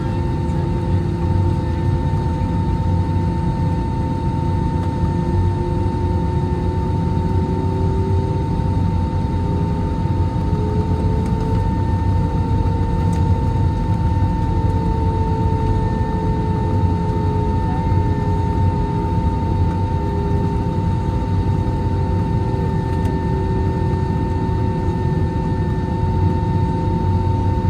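Airbus A321-231 taxiing on a single IAE V2500 engine: a steady jet hum with a constant high whine over it and a lower tone that drifts slightly up and back down through the middle.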